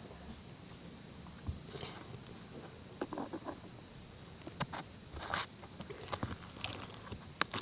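Homemade slime being kneaded and stretched by hand, giving faint, irregular sticky clicks and squishes.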